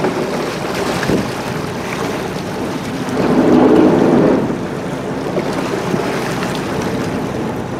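Wind buffeting the microphone over the steady drone of a tour catamaran's twin turbocharged Detroit Diesel engines and the water along the hull. The sound swells louder for about a second, some three seconds in.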